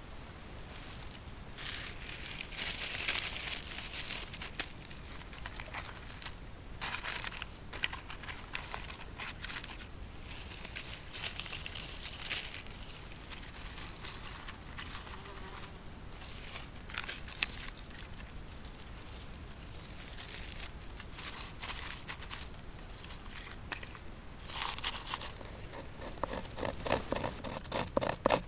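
Dry birch bark crinkling and tearing in the hands as it is pulled apart and stuffed into a split-log stove as tinder. Near the end, a knife blade scrapes the bark in quick repeated strokes.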